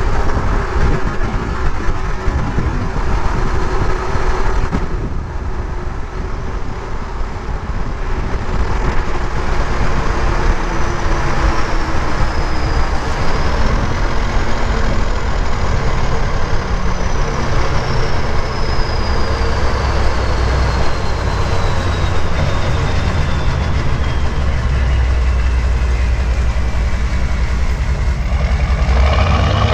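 1996 Chevy K1500's 6.5-litre turbo diesel running through a straight-piped 4-inch turbo-back exhaust: a deep engine rumble under a high turbocharger whistle. The whistle climbs to its highest pitch about halfway through, then falls slowly as the truck slows, and rises sharply again near the end.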